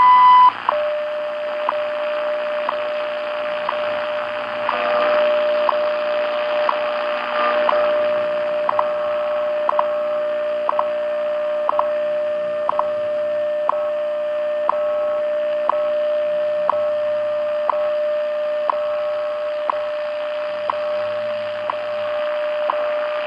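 WWV time signal received on a shortwave radio on 10 MHz AM. It opens with a 1000 Hz tone of under a second marking the top of the minute. Then comes a steady 600 Hz tone with a short tick every second, over shortwave hiss.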